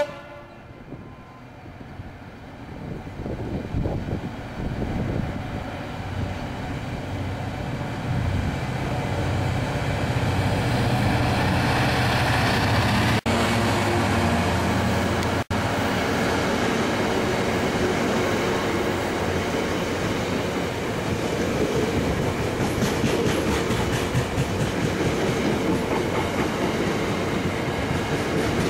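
Class 66 diesel-electric locomotive's two-stroke V12 engine growing louder as it approaches and passes close underneath, followed by a long train of loaded coal hopper wagons rolling past with a steady rumble and rhythmic wheel clatter.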